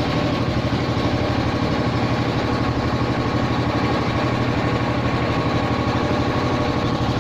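A vehicle engine running steadily at an even low speed.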